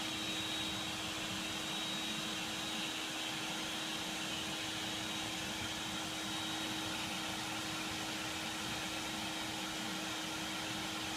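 Small electric blower running steadily, feeding air into a coal-fired brick furnace: a constant hum with a steady rush of air.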